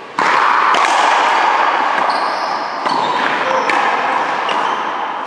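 Racquetball rally: a few sharp cracks of the ball off racquets and the wall, echoing in a large hall, over background voices.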